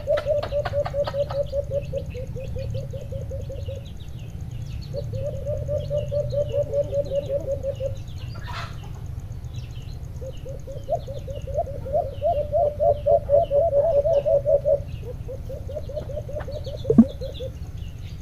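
Caged alimokon decoy doves cooing: long runs of rapid, low coos, each run a few seconds long with short pauses between, over faint chirping from small birds.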